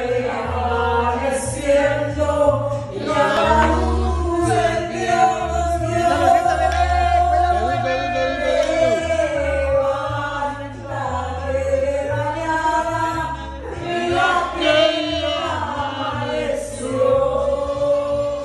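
Several voices singing along over a karaoke backing track with a pulsing bass line, a woman's voice amplified through a handheld microphone.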